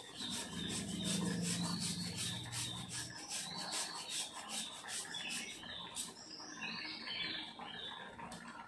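Block of jaggery rubbed on a handheld steel grater, making rapid rasping strokes about three a second that stop about six seconds in.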